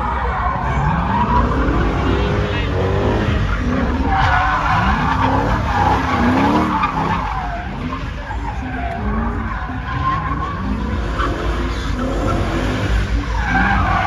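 V8-engined BMW E30 drifting: the engine revs up and drops back again and again, in rising pitch sweeps every second or two, over continuous tyre screech.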